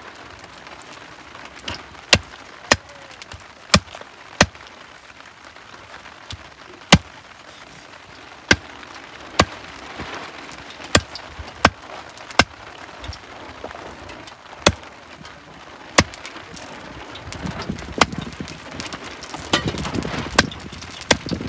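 Machete chopping a goat head on a wooden stump block: sharp single chops at an uneven pace, roughly one a second, with a busier rustle and clatter in the last few seconds.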